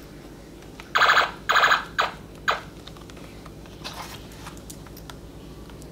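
Battery-powered toy machine gun's electronic firing sound effect from its small speaker: two harsh, buzzing bursts about a second in, then two short ones. Light plastic handling knocks follow.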